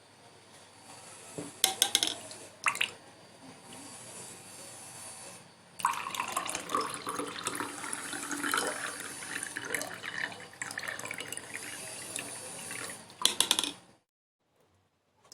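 Water running and splashing, with a few sharp knocks. It grows louder about six seconds in and cuts off abruptly near the end.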